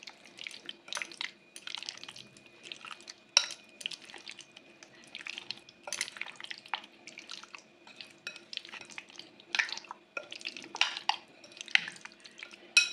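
Spoon stirring chicken pieces through a thick yogurt-and-spice marinade in a glass bowl: irregular wet squelches and clicks of the spoon against the glass, with one sharper knock about three and a half seconds in.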